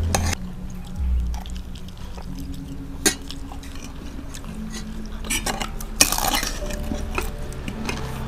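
Metal spoons clinking and scraping against plates while eating: scattered sharp clicks, with a longer scrape about six seconds in. Soft background music plays underneath.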